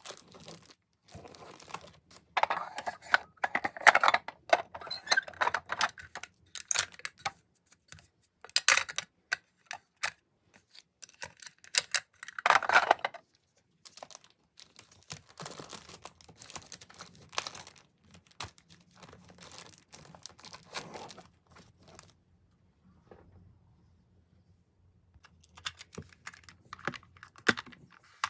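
Close-up handling of packaging: tearing, crinkling and light clicks and taps in irregular bursts, quieter for a few seconds late on.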